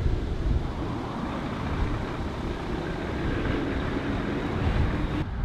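Volvo FH tractor unit's diesel engine pulling out and driving past close by, a steady engine drone. The sound cuts off suddenly near the end.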